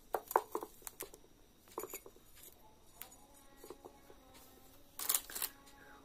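Hands and a small tool working a soft clay plate with leaves pressed into it: scattered light taps, scrapes and leaf rustles, with a louder rustling scrape about five seconds in.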